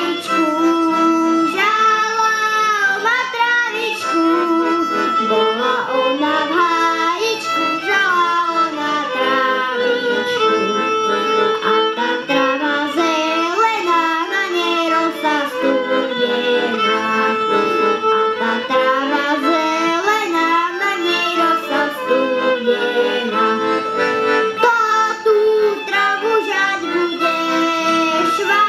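Violin and piano accordion playing a Slovak folk song, with a young boy singing.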